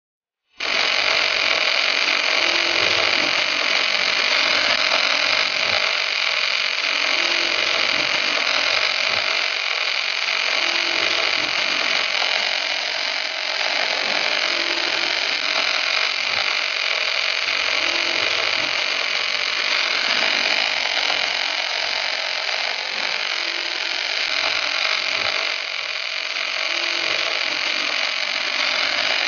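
Wire-feed welding arc from the torch of an HK-4B electromagnetic auto welding carriage, striking suddenly about half a second in and then running steadily as a high-pitched hiss.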